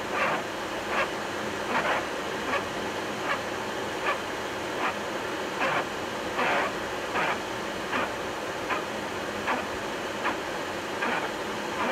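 Boeing 737-800 windshield wipers running on low speed across a rain-wet windshield, one swish about every 0.8 s, over the steady rush of cockpit air noise.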